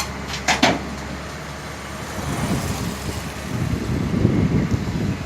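Komatsu excavator's diesel engine running, getting louder and heavier in the second half as it works. There is a sharp click at the very start and two short sharp knocks about half a second in.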